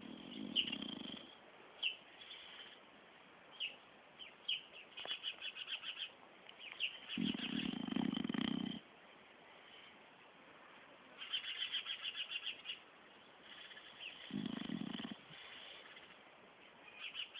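Sleeping dog snoring: a low rumbling snore about every seven seconds, with rapid fluttering, whistly breaths through the nose in between.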